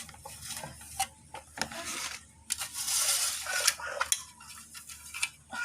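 Irregular rustling, clicks and light knocks of a handful of mimosa (putri malu) stems being handled beside a cooking pot, with a few clinks of the pot.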